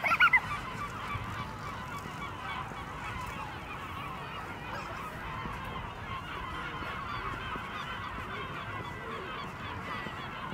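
A large flock of birds calling continuously, many overlapping short chattering and honking calls over a low city hum. A short, loud, high squeal sounds right at the start.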